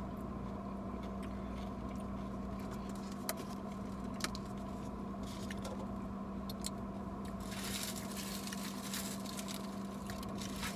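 Quiet eating sounds, chewing and a couple of light clicks of a plastic fork against a foam takeout container, over a steady low hum inside a car.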